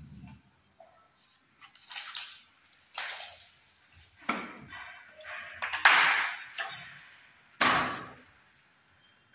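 Laminate sheet being handled and worked on a tiled floor: a run of about five separate scraping, slapping noises, the loudest about six seconds in, with a sharp slap near the end.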